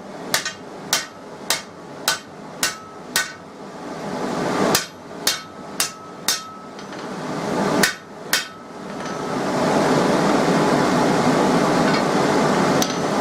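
Hand hammer striking steel: about six blows at roughly two a second, a pause, four more, then two, some leaving a brief metallic ring. Near the end a steady rushing noise builds.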